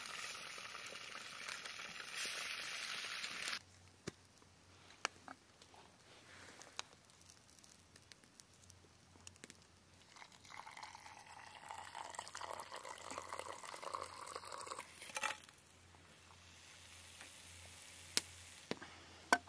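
Eggs sizzling in a skillet over a campfire for the first few seconds, cutting off suddenly. Then scattered light clicks, and about halfway through, water poured into a collapsible pour-over coffee dripper for around five seconds, with a few sharp clicks near the end.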